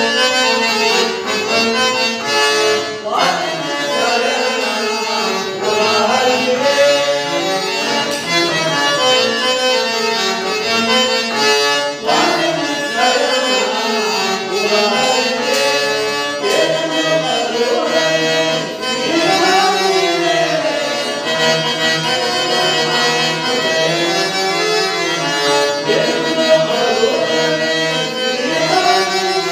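A stage song from a Kannada drama: a man sings a long, gliding, ornamented melody over a harmonium that sustains steady reed chords.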